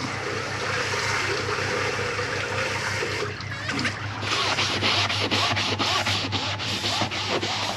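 Water rushing steadily from a garden hose, then a scouring pad scrubbing the tube of an inflatable dinghy in quick back-and-forth strokes, about four a second.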